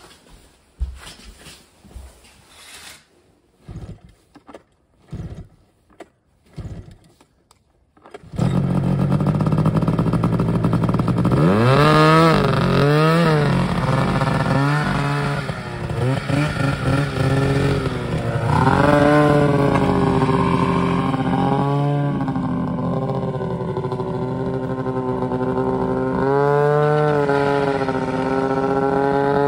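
A few quiet knocks and rustles of clothing, then about eight seconds in a snowmobile engine comes in loud and runs on, revved up and down again and again as the sled is ridden.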